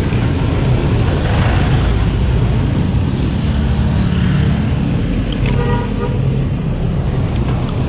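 Steady road and traffic noise heard from a moving bicycle, with wind rumble on the camera microphone, as motorcycles and cars pass close by. A short horn toot sounds about five and a half seconds in.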